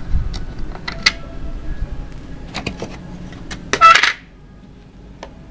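Plastic grille cover being pried and pulled off a 10-inch subwoofer enclosure: a run of small clicks and knocks from the clips and screwdriver, then a louder scraping snap just before four seconds in as it comes free.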